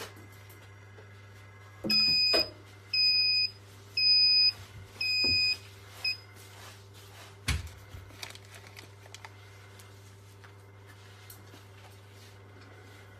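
YD-II tablet hardness tester's electronic buzzer beeping four times at one steady pitch, each beep about half a second long, then a short fifth blip. A single sharp click follows a little later, over a steady low hum.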